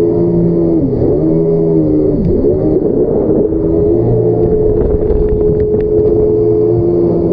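Yamaha jet ski engine running at high revs. The engine pitch drops sharply and recovers twice in the first few seconds, then holds steady.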